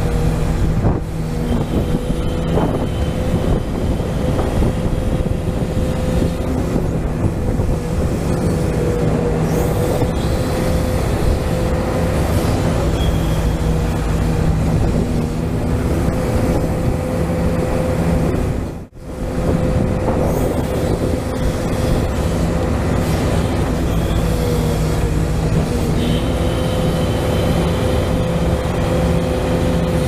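Hydraulic pump of a custom hydraulic RC excavator whining steadily under load as the bucket digs soil, with a brief break about two-thirds of the way through.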